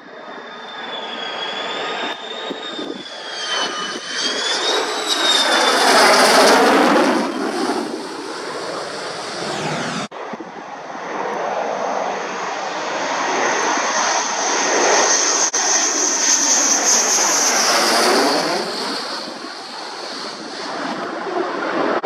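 Military jet passing low overhead on approach to land, twice: each pass is a jet roar that swells and fades, with a high turbine whine that wavers and then falls in pitch as the jet goes by. The sound cuts off abruptly about ten seconds in, between the two passes.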